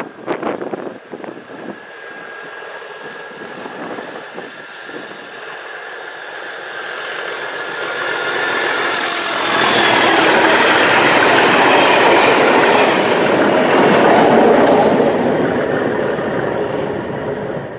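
Class 37 diesel-electric locomotive 37 116 working hard under throttle, its English Electric V12 engine growing louder as it approaches with a steady high whistle over it, loudest for several seconds as it passes, then the test coaches running by until the sound cuts off suddenly.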